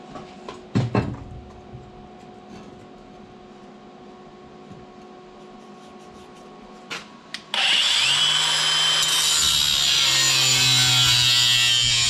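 A few knocks about a second in, then a power tool starts about seven and a half seconds in and runs loudly and steadily with a high whine, on work on a bulldozer's exhaust.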